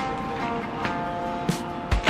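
Background music with steady held notes. Near the end come a couple of sharp knocks from a knife starting to cut leafy greens on a plate.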